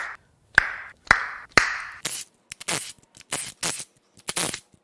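Spark plug wire boots being pulled off a Ford 4.0L SOHC V6: three sharp pops, each with a short hiss after it, about half a second apart. From about two seconds in, a cordless ratchet runs in short bursts, backing the spark plugs out.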